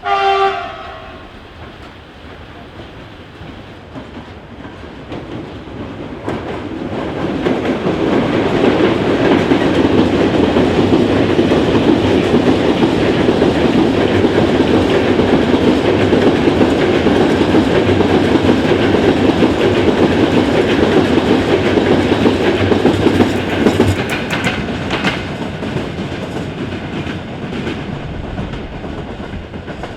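A short train horn blast, then a train passing through the station: a rumble that builds up, holds loud for about fifteen seconds with the wheels clacking over rail joints, and fades away.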